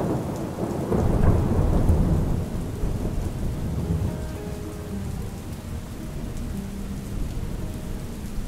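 Rolling thunder over steady rain: a low rumble swells about a second in, then slowly fades, while the rain hiss carries on.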